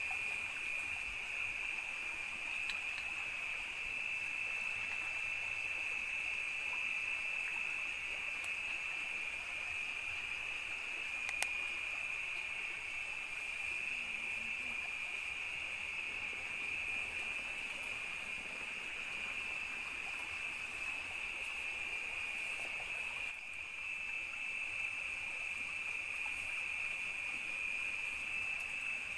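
Night-time forest insect chorus: a steady, unbroken high-pitched drone. There is a single sharp click about eleven seconds in.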